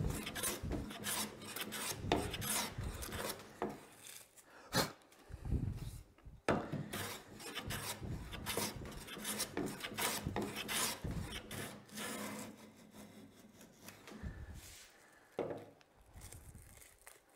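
Metal hand plane with a freshly sharpened blade taking repeated quick strokes along a maple board, each pass a short rasping hiss as the blade slices thin shavings. The strokes become sparser and quieter in the last few seconds.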